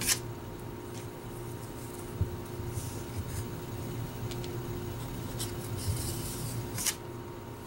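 Paper trading cards being handled and slid against each other in a stack: soft rustling with a few light clicks and snaps, the sharpest right at the start and near the end, over a steady low hum.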